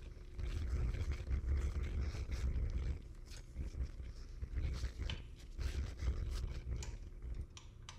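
An Allen key working the two kickstand mounting bolts on an e-bike frame: uneven low rubbing and bumping of hands and tool, with scattered light metal clicks and scrapes, most of them in the second half.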